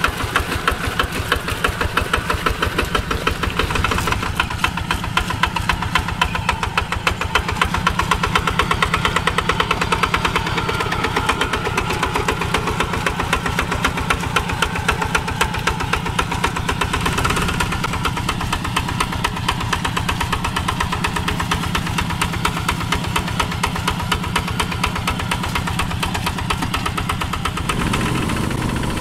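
Single-cylinder Kubota-type diesel engine of a two-wheel walk-behind tractor running under load as it pulls through wet paddy mud, with a steady, rapid chugging beat. The sound shifts in tone near the end.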